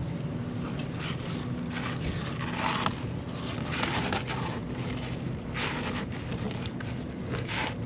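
Fillet knife scraping in several short strokes as it separates the skin from a fish fillet, over a steady low hum.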